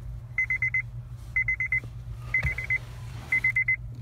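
2007 Honda Civic's warning chime beeping in quick bursts of about five high beeps, one burst a second, four bursts in all, over a low steady hum.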